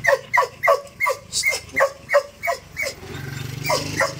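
A dog yelping in quick, high cries, about three a second, each falling in pitch. After about three seconds the cries stop and a low steady rumble sets in, with one more cry near the end.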